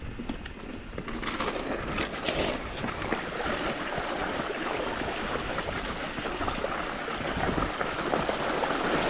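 Mountain bike riding along a river: a steady rushing wash of tyre and water noise with scattered small clicks and rattles.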